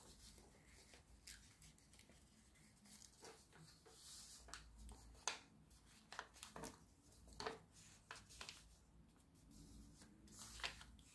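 Faint rustling and creasing of a sheet of paper being folded by hand, with a handful of short crackles spread through.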